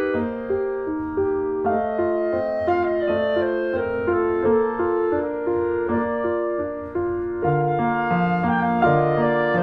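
Instrumental background music in a piano-like tone, playing a steady run of held notes; a lower line comes in about seven and a half seconds in.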